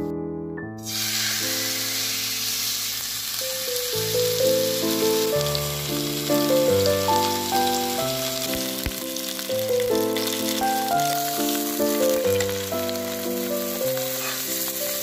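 Beef steak searing in hot olive oil in a nonstick frying pan: a steady sizzle that starts about a second in, under background music.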